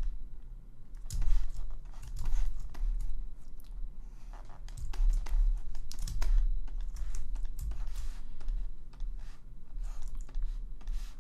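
Irregular clicking and tapping of computer keys, a scattered run of separate clicks, over a steady low electrical hum.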